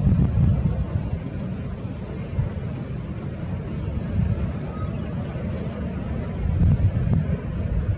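Low, uneven rumble of a distant Boeing 737's jet engines as the airliner taxis after landing, swelling and dipping, louder near the start and again near the end. Short, high bird chirps come every second or so.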